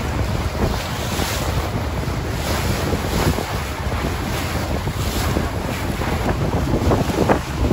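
Wind buffeting the microphone on a moving motorboat, over the steady rush of its wake churning the water.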